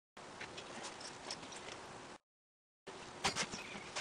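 A few light metallic clicks and taps from a wrench working the nuts on a Model T rear leaf spring, over a steady low hiss, with a quick run of clicks near the end. The sound cuts out completely twice, briefly.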